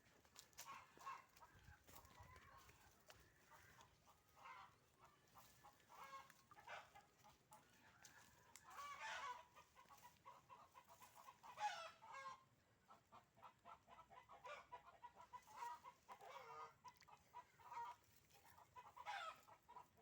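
Faint bird calls repeating throughout, with a few louder calls that fall in pitch.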